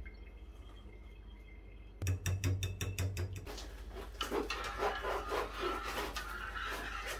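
A fork beating eggs in a glass bowl, quick regular clicks for about a second and a half, then a metal spoon scraping and stirring inside a steel saucepan.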